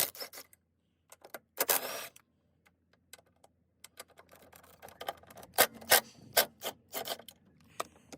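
Hand ratchet wrench clicking in short runs as the strut's top-mount nuts are backed off, with a brief scrape about two seconds in.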